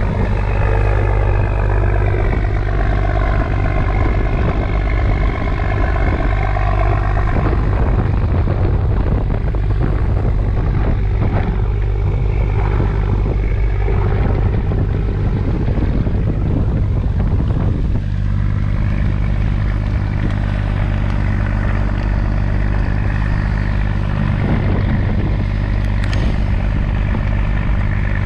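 Fishing boat's engine running steadily with a deep, even hum; its tone shifts about 18 seconds in.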